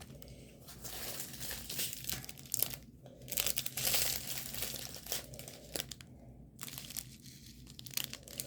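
Crinkly packaging rustling and crackling irregularly as a diamond painting kit is handled and unpacked by hand, busiest around the middle.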